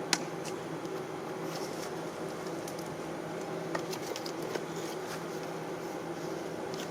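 Steady low machine hum, with a few faint light clicks and paper rustles as a packing slip is handled.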